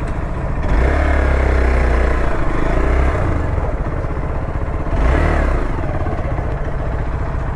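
Hero Xpulse's single-cylinder engine running as the bike is ridden slowly. The throttle opens with a rise in pitch about a second in and holds for a couple of seconds, then is blipped briefly again about five seconds in.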